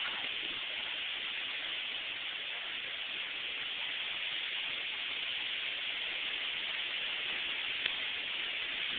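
Windstorm wind blowing steadily, a continuous rushing hiss with a faint click about eight seconds in.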